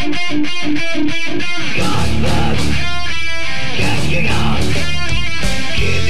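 Heavy rock band music. It opens suddenly with a quick, evenly picked guitar figure, and about two seconds in the full band comes in heavily with guitar and bass.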